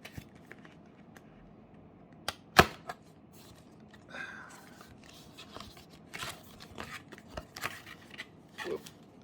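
Cardboard box and paper inserts being handled: a sharp knock about two and a half seconds in with a couple of lighter clicks around it, then scattered rustling and ticks as card pieces are lifted out.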